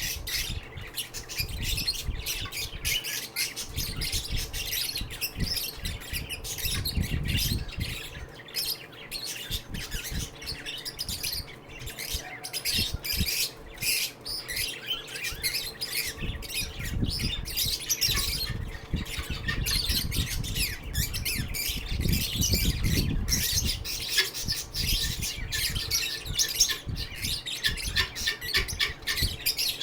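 Lovebirds chirping and squawking in a constant rapid, high chatter, with a few low rumbles underneath.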